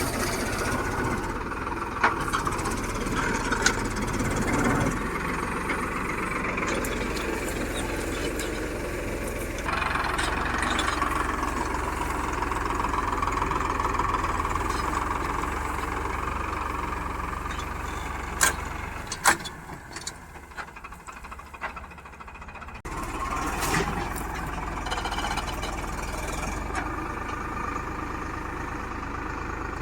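Farmtrac 6055 tractor's diesel engine running steadily, with a few sharp clicks and a brief quieter stretch about two-thirds of the way through.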